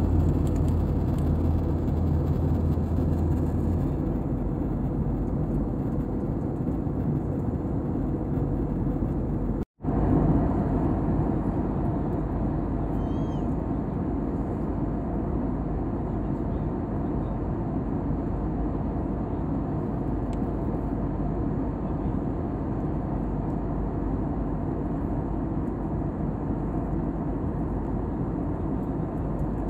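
Steady rumble and hiss of a moving vehicle, with a strong low hum in the first few seconds. The sound drops out for a moment about ten seconds in, then the same steady noise resumes, with a brief faint chirp a few seconds later.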